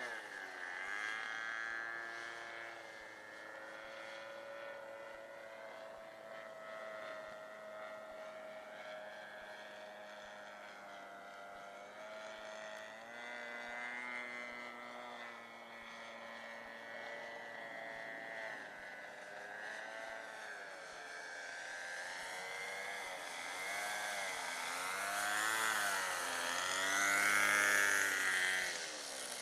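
Engine of a radio-controlled model airplane in flight, a steady drone whose pitch wavers and glides as the plane turns and passes. It grows louder late on as the plane comes in low over the field.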